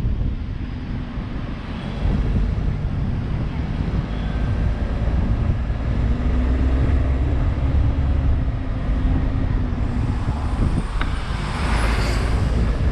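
Motor vehicle driving on a road: continuous engine and road noise with a low rumble, and a louder rush of noise about a second before the end.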